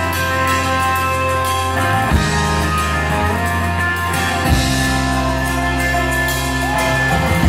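Live rock band playing loud through the PA, with guitars, bass and drums. Drum and cymbal hits mark a chord change about every two to three seconds, and no singing is heard.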